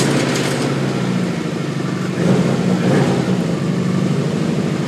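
2002 Subaru WRX's turbocharged flat-four engine running steadily just after being started: the engine of a car wrecked in a front-on collision still runs, with its front end stripped off. The level lifts slightly a little over two seconds in.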